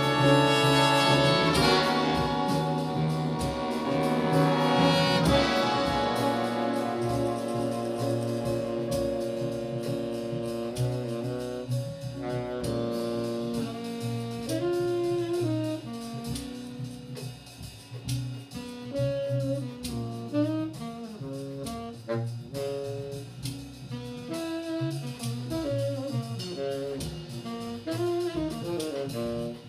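Jazz big band playing: held full-ensemble horn chords for the first few seconds, then a tenor saxophone solo winding over the rhythm section.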